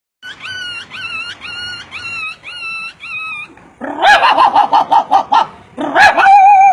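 A man imitating a dog with his voice. First comes a series of six high whimpering calls, each rising then falling. Then a louder quick run of yips and barks, and a long held whine near the end.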